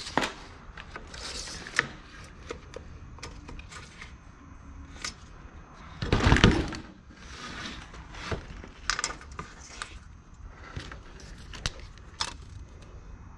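Scattered small clicks and knocks of a tape measure and hand tools being handled on a workbench while measuring and marking. About six seconds in comes one louder clattering rub.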